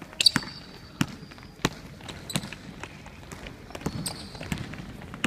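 Basketball bouncing on a gym's hardwood court: a string of sharp, irregularly spaced bounces, the loudest just after the start, with a few short high squeaks of sneakers on the floor.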